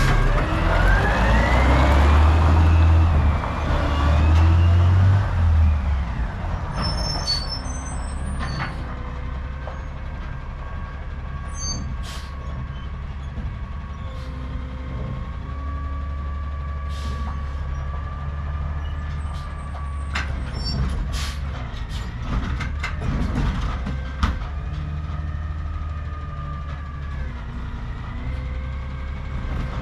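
Garbage truck's diesel engine revving loudly as it pulls away for the first several seconds, then running more quietly and steadily as it moves off, with scattered clicks and clanks.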